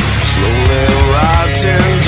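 Rock song with a singing voice, drums and a dense low band.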